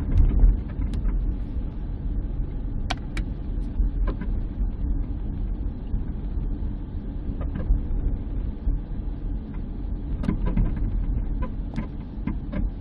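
Front-suspension noise from a minivan driven over a bumpy road, relayed through the speaker of a Steelman wireless ChassisEar receiver listening to passenger-side clamps: a steady low rumble with scattered sharp knocks.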